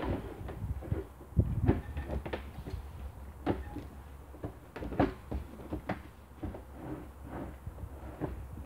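Irregular hollow plastic knocks and clunks as a rainwater downpipe is fitted into the top of a plastic water butt.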